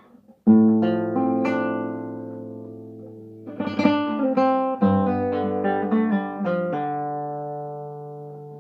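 Acoustic guitar playing: a chord strummed about half a second in and left to ring out and fade, then a passage of plucked notes and chords from a little past three seconds, ending on a ringing chord.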